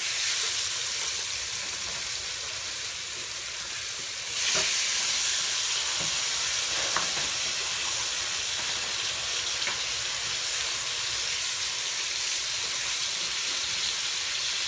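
Seasoned pork steaks sizzling in hot oil in a nonstick pan as they brown. The sizzle steps up louder about four seconds in, with a few light clicks from kitchen tongs handling the meat.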